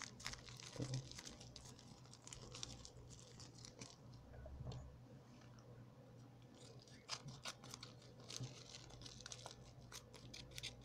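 Parcel packaging being torn open and crinkled by hand: faint, irregular crackling with scattered small clicks.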